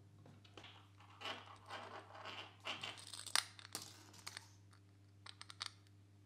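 Handling noise from a small metal panel-mount jack being fitted through a clear acrylic plate: scraping rustles and light clicks, with one sharp click about three seconds in and a few quick clicks near the end.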